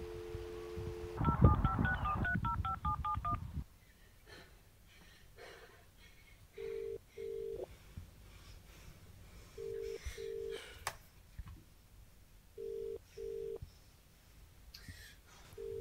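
Telephone call being placed: a steady dial tone, then a quick run of keypad dialing tones, then the British-style double ringing tone repeating four times, about every three seconds, with no one answering.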